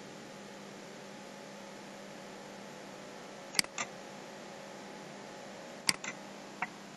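A computer mouse clicking: a pair of sharp clicks about three and a half seconds in, another pair about six seconds in, then a single click near the end. Under them runs a steady faint hum and hiss.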